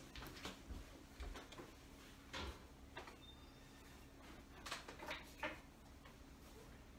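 Faint handling noises in a quiet kitchen: a scattering of soft knocks and rustles as a basket of dish towels is picked up from the counter and moved about.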